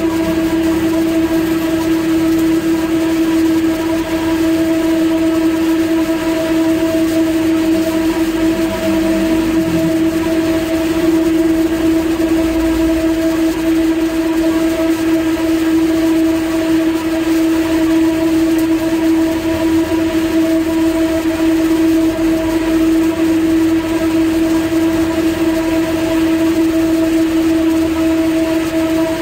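Steady, loud machine hum with one constant pitch, typical of an electric motor running at fixed speed, with a faint hiss under it.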